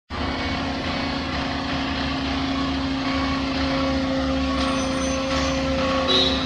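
Heavy diesel machinery engine running steadily, a constant low rumble with a steady hum, cutting off abruptly at the end.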